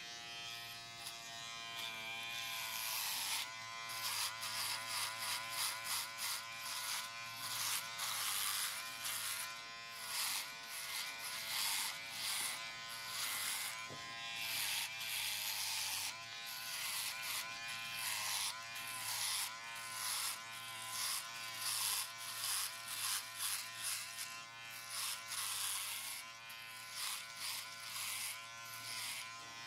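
Barber's electric clipper buzzing steadily, its pitch dipping and recovering about once a second as it is pressed into and drawn through hair.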